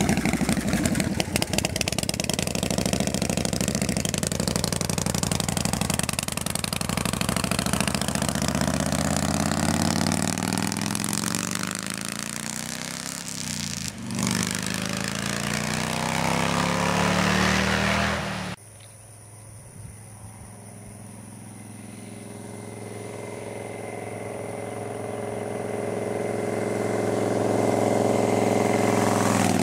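Custom chopper motorcycle engine running as the bike rides away, growing gradually fainter. About 18 seconds in the sound cuts abruptly, and an engine then grows steadily louder as a motorcycle approaches.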